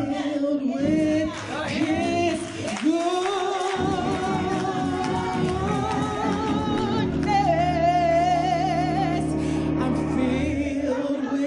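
A woman singing a gospel hymn into a microphone, drawing out long notes with a wide vibrato over a steady low accompaniment.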